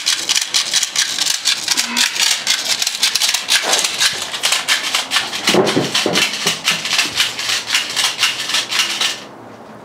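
Fast, even rattling and clicking of airsoft BBs in an airsoft magazine being handled, several clicks a second, stopping about nine seconds in.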